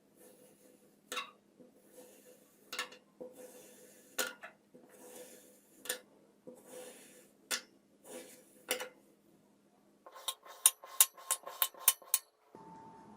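Slime being squeezed and worked by hand: soft squishing with a sharp click or pop about every second and a half, then a quick run of crisp clicks near the end.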